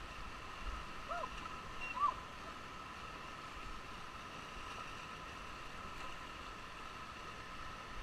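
Steady rush of whitewater river heard from a raft on the rapids, with a faint steady high hum under it. Two brief sharp chirp-like sounds stand out about one and two seconds in.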